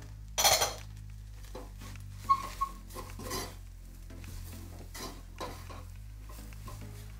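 A wooden spoon stirring beans, peppers and melting grated cheese in a stainless steel saucepan, scraping and knocking against the pan. There is one loud scrape about half a second in, and two short ringing clinks from the pan a little after two seconds.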